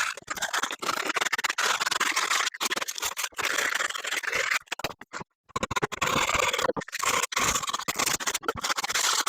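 Sandpaper rubbed by hand along the edges of a cut wooden board in quick back-and-forth strokes, knocking off rough spots, with a brief pause about halfway through.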